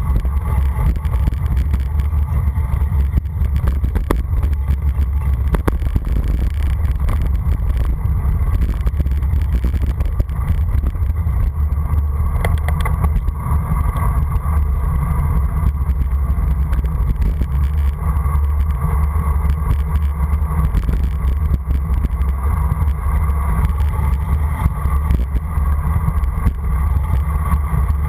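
Wind buffeting the microphone of a camera on a road bicycle speeding downhill: a loud, steady low rumble.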